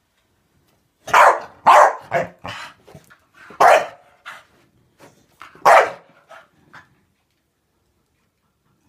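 Staffordshire bull terrier barking excitedly at soap bubbles: a string of barks over about six seconds, four of them loud, with shorter, quieter barks between.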